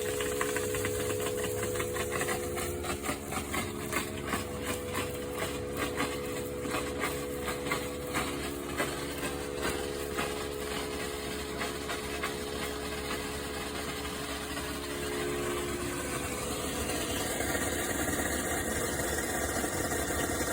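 A motor running steadily, with irregular rattling knocks during the first half; its tone shifts about sixteen seconds in.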